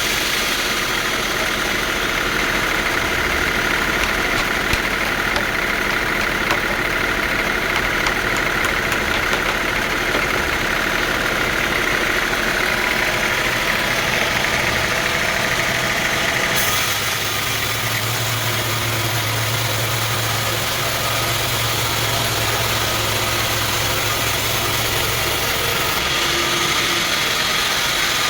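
Sawmill machinery running with a steady engine-like drone. About two-thirds of the way in the sound shifts to a deeper hum for several seconds, then returns to the earlier sound near the end.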